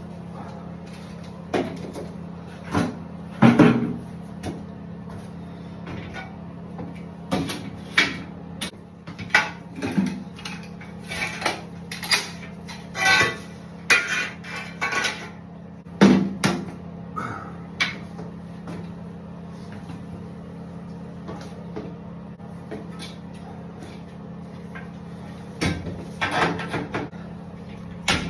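Shower door rails being handled and fitted: irregular knocks and clinks, some in quick clusters, over a steady low hum.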